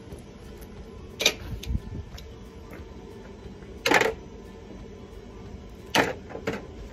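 Three sharp knocks, about a second, four seconds and six seconds in, the one at four seconds the loudest, with a few lighter taps after the last. They are clamps and a freshly glued wooden door panel being handled on a timber bench, over a faint steady hum.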